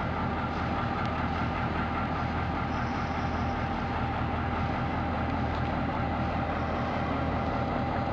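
DBR-class diesel locomotive's EMD 645 V8 engine running steadily at low throttle as the locomotive rolls slowly, with a steady deep engine note and a constant higher whine.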